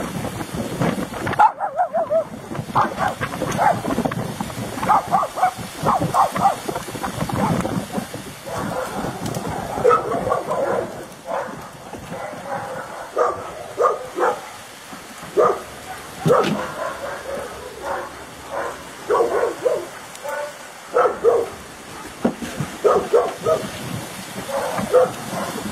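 Dogs barking over and over, in clusters of a few barks with short pauses between.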